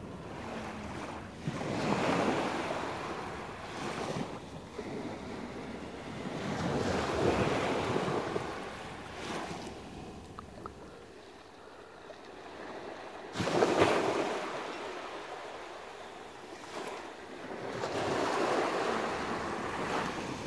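Sea surf washing onto a beach, swelling and fading in waves roughly every five seconds, with wind on the microphone.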